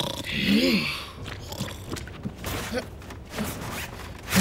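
A short snore-like sound from a sleeping cartoon creature about half a second in, rising and then falling in pitch with breathy hiss. Soft, scattered taps and rustles follow.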